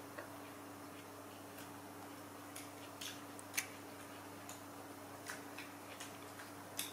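Longans and their brittle shells being handled on a tiled floor, giving a scattering of small sharp clicks at irregular intervals, the loudest about three and a half seconds in, over a faint steady hum.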